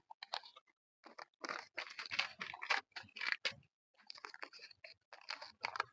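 Folded paper lottery slip rustling and crinkling as it is unfolded by hand close to a clip-on microphone, a run of irregular small crackles that is busiest in the middle.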